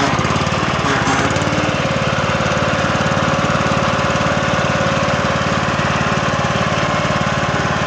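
Husqvarna riding lawn mower's engine running steadily under way, an even, fast firing rhythm.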